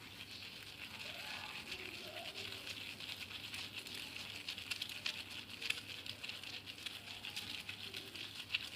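Hands squeezing and crushing a wad of mayana (coleus) leaves to wring out their juice: a steady crackling and crinkling made of many small clicks.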